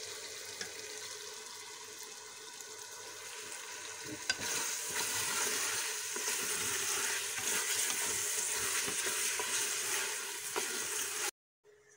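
Chana dal sizzling as it fries with spices in hot oil in a metal pot while a spoon stirs it. After a click about four seconds in the sizzle grows louder, and it cuts off abruptly near the end.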